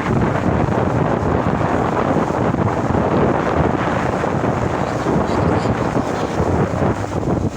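Wind buffeting the microphone: a steady, rough rushing noise, heaviest in the low end.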